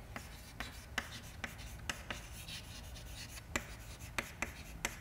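Chalk writing on a chalkboard: a string of light, irregular taps and short scratches as the letters are written.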